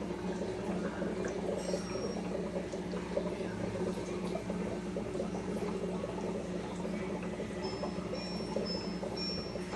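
Aquarium water bubbling steadily over a low electric hum, as from an air-driven sponge filter in a fry tank. A few short, high squeaks come near the end.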